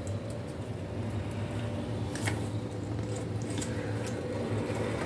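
Light handling sounds of a small paper bow and a wooden clothespin: scattered faint clicks and rustles at irregular moments, over a steady low hum.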